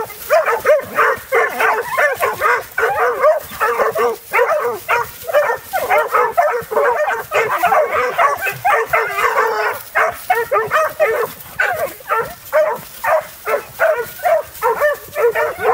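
A pack of dogs barking and yipping several at once in a rapid, unbroken stream as they set on a possum in a wire trap.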